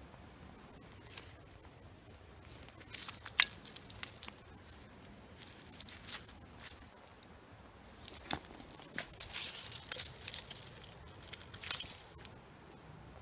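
Digging and handling in soil and leaf litter with a gloved hand and a trowel: scattered scraping, crunching and crackling, in two bursts with the sharpest crunch about three and a half seconds in.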